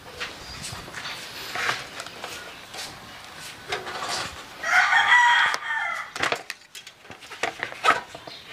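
A rooster crows once, about five seconds in, the loudest sound here, over scattered clicks and rustling of battery-charger cables and clamps being handled.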